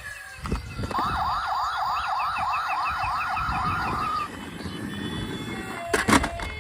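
Toy emergency vehicle's electronic siren warbling fast, about three rises a second, for about three seconds. A few sharp knocks come around it, the loudest near the end.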